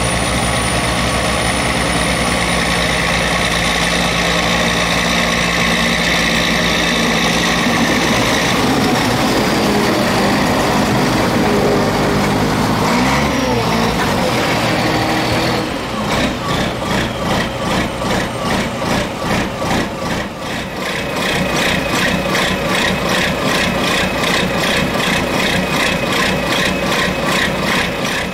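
Snowcat diesel engines. First a groomer runs steadily under load with a high whine above the engine note, and its pitch glides up and down around the middle. Then a second snowcat is heard close up, its diesel running with an even pulsing beat about twice a second.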